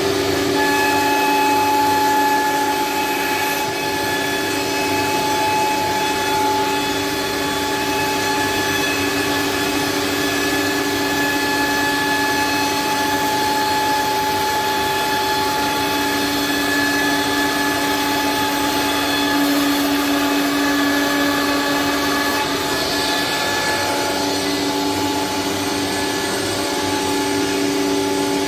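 Single-spindle CNC wood router with a vacuum hold-down table running: a loud, steady whine of several held tones over a continuous hiss.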